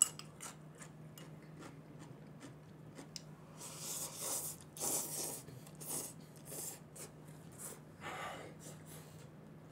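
A person slurping Chapagetti black-bean noodles from a bowl: a run of short, hissy slurps starting a few seconds in, with a last one near the end.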